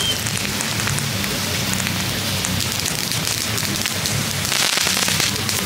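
Small kids' ground firework hissing steadily as it sprays sparks, with scattered crackles; the hiss grows brighter and louder for a moment about four and a half seconds in. A steady low hum runs underneath.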